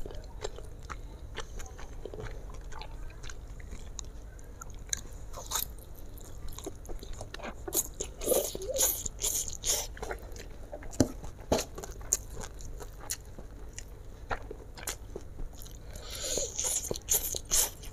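Close-up eating of fried flat rice noodles (kwetiau): wet chewing and smacking mouth noises, thickest in clusters about eight to ten seconds in and again near the end.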